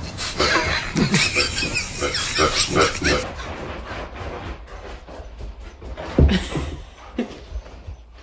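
A dog's excited vocal noises, rapid and rising and falling in pitch, as it jumps at the back of a couch. About three seconds in they give way to a quieter stretch with one dull thump a little after six seconds.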